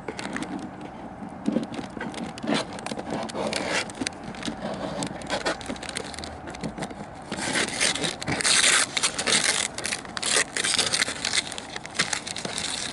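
A tape-sealed cardboard box being opened by hand: packing tape cut and ripped, with scraping and crackling. A longer, louder stretch of tearing and crinkling of wrapping starts about seven seconds in.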